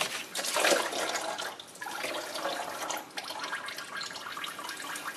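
Antifreeze coolant pouring and splattering out of the radiator's lower outlet as the lower radiator hose is pulled off, loudest in the first second.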